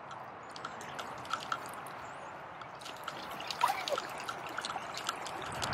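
Shallow woodland stream trickling across a muddy path: a faint steady water sound with scattered small drips and ticks.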